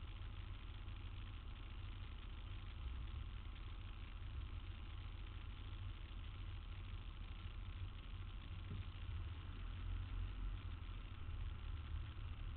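Street traffic: a steady low rumble of vehicle engines idling and running, with no sharp events.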